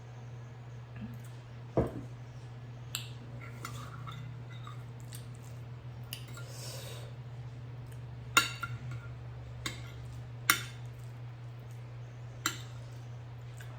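Utensil clicking against a dish a handful of times, about six sharp taps spread out, over a steady low hum, with a short rustle in the middle.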